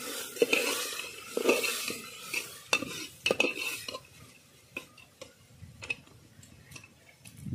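A metal ladle stirs and scrapes chana dal and diced potato in an aluminium pressure cooker while it fries in a little oil, clinking against the pot. The sizzling fades and the clinks thin out over the last few seconds.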